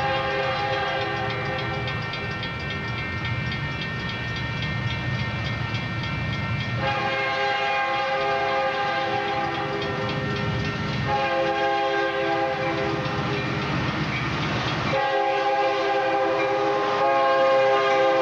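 Union Pacific diesel freight locomotive's multi-chime air horn sounding a series of long blasts as the train approaches, over the low rumble of the engines. Near the end the horn chord drops slightly in pitch as the locomotives pass close by.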